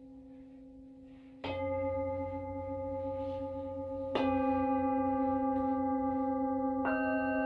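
Singing bowls struck three times, about two and a half seconds apart. Each strike rings on and layers over the last, so the tones pile up, above a bowl's ringing hum that carries on from before the first strike.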